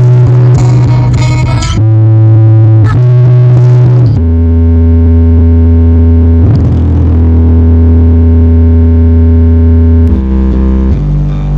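Loud music played through a big outdoor sound system of 24 subwoofers and 16 line-array speakers, carried by long, heavy bass notes that shift pitch every few seconds.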